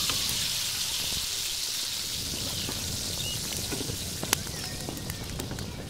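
Pan of goat meat and onions sizzling over a wood fire: a steady, fine hiss that slowly fades near the end, with a sharp click about four seconds in.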